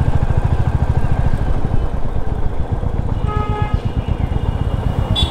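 Royal Enfield Meteor 350's single-cylinder engine running at riding speed, a steady low thumping. A vehicle horn sounds briefly a little after three seconds in.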